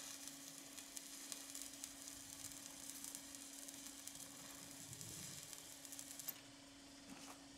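Stick-welding arc crackling and sizzling as an electrode lays a bead on a steel square-tube frame; the arc stops about six seconds in.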